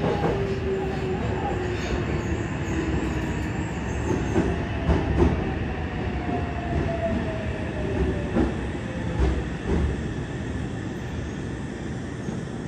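Subway train running sound heard inside the car of a Yokohama Blue Line 3000R set, with the whine of its Mitsubishi IGBT-VVVF inverter traction motors falling in pitch in steps as the train brakes into a station. A few sharp wheel clicks over rail joints sound along the way.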